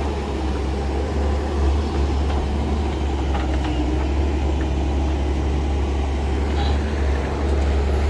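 Diesel engines of a road roller and a Doosan DX140W wheeled excavator running steadily with a deep, continuous drone, as the roller compacts the excavated plot. A few faint clicks over it.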